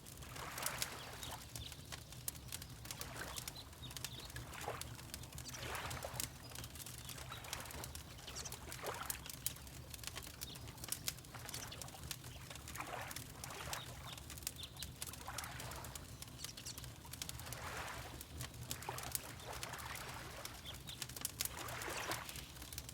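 Fireplace crackling with frequent sharp pops over a low steady rumble, mixed with water lapping in soft, irregular swells every second or two.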